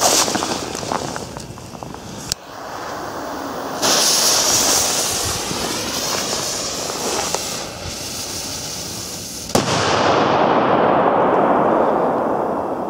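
Small consumer fireworks burning: a crackling fizz, then a loud steady hiss that starts suddenly about four seconds in. After a sharp pop near the ten-second mark comes a louder, fuller rushing hiss that slowly fades out.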